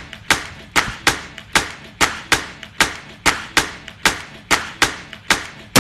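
Footsteps walking at a steady pace, two to three sharp steps a second. Music comes in right at the end.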